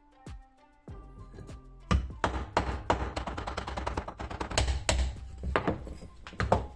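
Background music at first, then from about two seconds in a quick run of sharp wooden knocks as a fixed-blade knife is driven down through an upright stick to split it (batoning).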